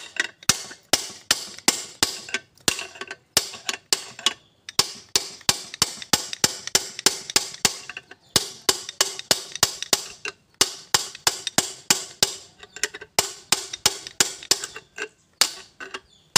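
Steel hammer tapping a long steel bar to turn the side-bearing adjuster of a Colt Diesel 120PS differential, setting the backlash between pinion and ring gear. Quick ringing metal strikes, about four a second, in runs broken by short pauses.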